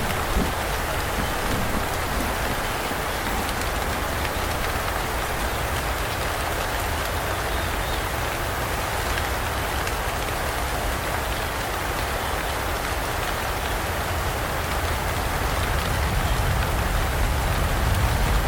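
Heavy rain falling steadily, a dubbed-in rain recording rather than live sound from the scene. A low rumble swells and the level rises toward the end.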